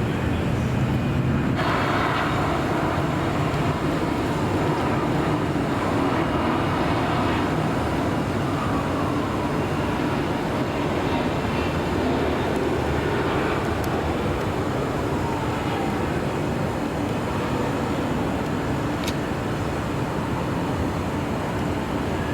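Jet airliner passing, its engine noise a steady rumble that grows fuller about a second and a half in, with faint whining tones slowly falling in pitch.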